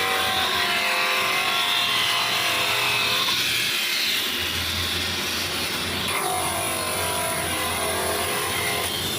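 A power tool running steadily, a continuous grinding noise with no break.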